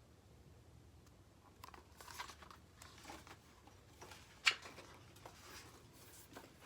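Faint rustling of paper, a picture book's page being handled and turned, with one sharp click about four and a half seconds in.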